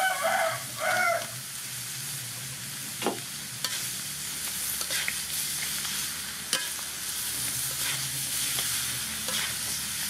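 Raw chicken pieces dropping into hot oil and shredded ginger in a metal wok, sizzling loudest in the first second, then a steady frying sizzle as the wok is stirred. A metal spatula scrapes and clinks against the wok several times.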